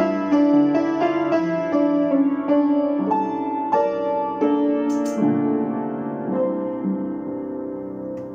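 Acoustic piano played by hand: a slow passage of chords and single notes, each left to ring, thinning out after the middle and the last notes fading away near the end.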